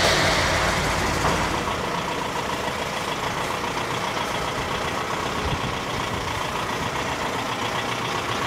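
Diesel engine of a red FAW truck running at low speed as it creeps forward to a stop, with a short burst of hiss right at the start that dies away within the first second.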